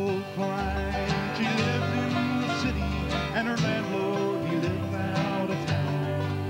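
Bluegrass band playing an instrumental break on acoustic guitars over an upright bass, with a plucked lead line over steady strummed rhythm and a bass note every couple of seconds.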